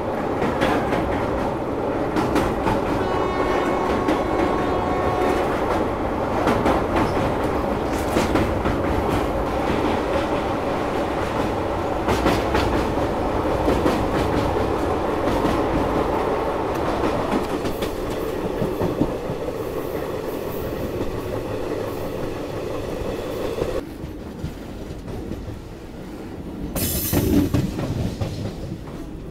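Indian Railways passenger express train, the West Coast Superfast Express, running along the line as heard from on board: a steady rumble with wheels clicking over the rail joints. The noise drops somewhat a few seconds before the end, and a short loud rush follows near the end.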